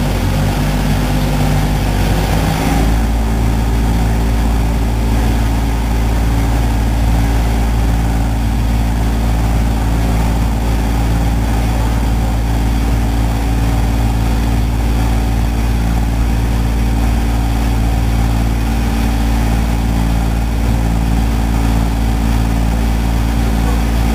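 Small ferry boat's engine running steadily under way, with a constant hiss over it. About three seconds in the engine note changes and grows stronger, then holds even.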